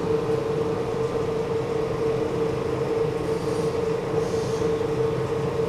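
Steady hum of factory machinery, with one strong steady tone over a rumbling noise, cutting off abruptly near the end.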